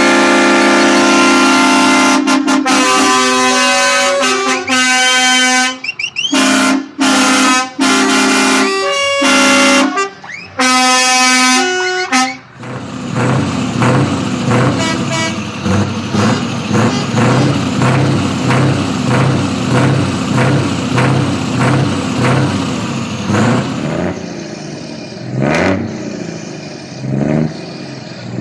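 Truck air horns sounding in a series of long, loud blasts that change pitch from one blast to the next, like multi-tone horns, for about the first twelve seconds. Then a lower, regular pulsing sound takes over, a little over one pulse a second, growing a bit fainter near the end.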